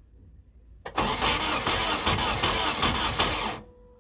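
A Volkswagen Golf Mk1's engine cranking: a click about a second in, then close to three seconds of loud cranking that cuts off suddenly. The owner finds this engine was built wrong, with no compression in cylinders 1 and 4.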